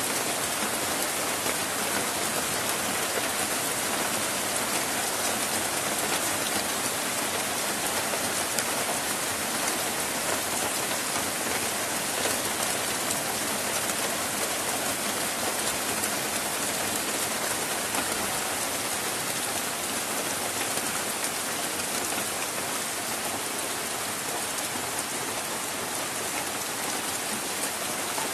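Heavy rain falling steadily on trees and flooded ground, a constant, even hiss that does not let up.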